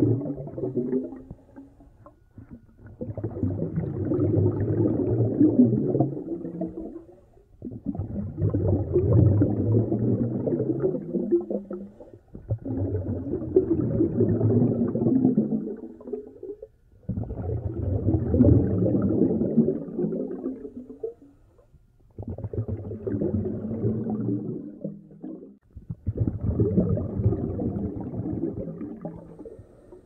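Scuba diver breathing through a regulator, heard underwater: a long bubbling rush of breath about every four to five seconds, with short pauses between, six breaths in all.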